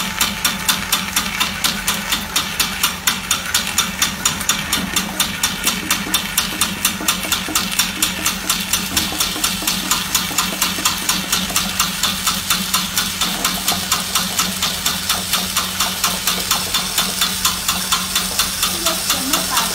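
Corn puff extruder running: a steady electric-motor hum with steam hissing from the die, under an even pulsing beat about four times a second as puffs are forced out.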